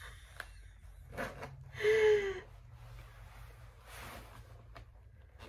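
A woman's short exasperated vocal sound about two seconds in, slightly falling in pitch. Around it are faint rustles and small clicks of her working a stuck zipper on a pair of leather pants, a zipper that turns out to be broken.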